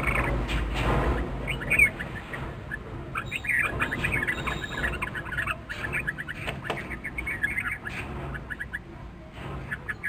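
Red-vented bulbuls calling in quick runs of short, high chattering notes. A low rumble fades out during the first second.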